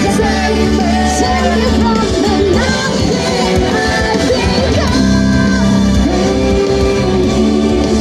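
Loud rock-pop music with a sung vocal line over a steady beat and bass.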